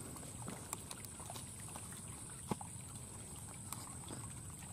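Faint outdoor background: a low steady rush with a constant thin high tone over it and a few soft clicks, one a little louder about two and a half seconds in.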